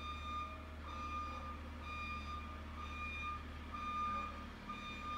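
A school bus's backup alarm beeping in a steady repeating pattern as the bus reverses, over a steady low hum.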